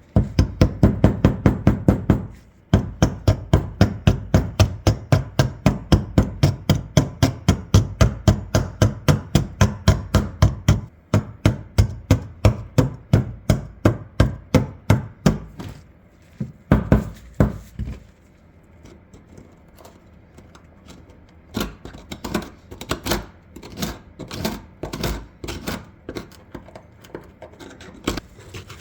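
Screwdriver blade scraping and chipping rust and packed gunk from between the shotgun's two barrels in rapid, even strokes, about five a second. After about sixteen seconds the strokes become slower, quieter and irregular.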